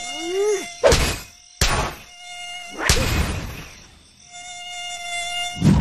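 Cartoon mosquito sound effect: a thin, steady high whine that cuts out and comes back, broken by three sharp slaps, a child swatting at it against his own cheek.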